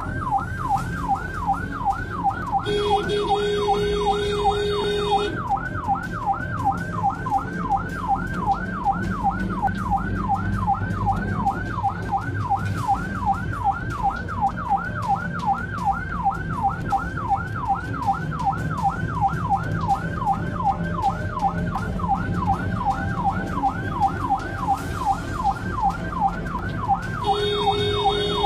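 Ambulance siren on a fast yelp, a rising wail repeating about three times a second, with two long blasts of the ambulance's horn: one about three seconds in, and one starting near the end.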